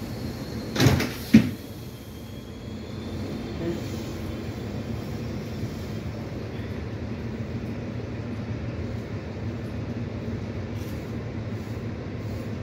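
Blue Pullman train coaches rolling slowly past the platform with a steady low rumble. Two sharp loud knocks, a fraction of a second apart, about a second in.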